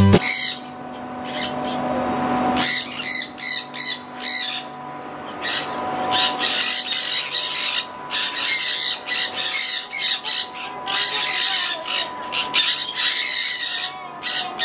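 Sun conures squawking: many short, shrill screeching calls, scattered at first and coming thick and fast from about six seconds in. A faint steady hum lies underneath.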